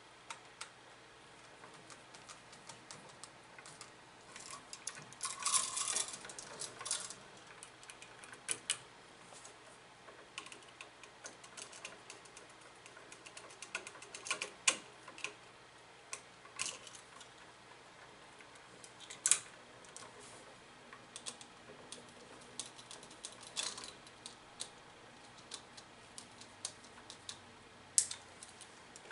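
Scattered light clicks and ticks of copper wires and a single-pole switch being handled and bent into place, with a denser patch of rattling clicks about five to seven seconds in.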